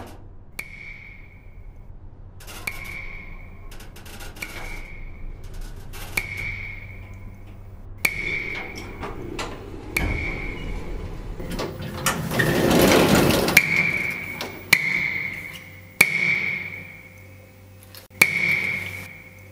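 Elevator chime dinging at one high pitch roughly every two seconds, each ding opening with a sharp click and ringing briefly. A little past the middle, a loud rushing swell builds and fades, the loudest sound of the stretch.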